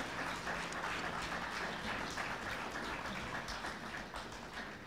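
Audience applauding, a dense patter of many hands clapping that gradually thins and fades toward the end.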